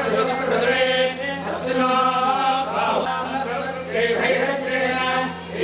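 Hindu priests chanting mantras in a steady, continuous recitation, with a low steady hum underneath.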